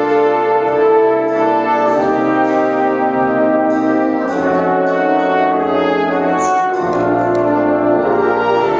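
Music in slow, sustained chords in close harmony, the chord changing every second or two.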